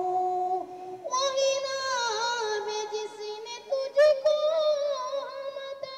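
A child's voice reciting a naat, the Urdu devotional chant, holding long wavering notes with no instruments heard; it breaks off briefly about a second in and comes back on a higher note. A single sharp click sounds about four seconds in.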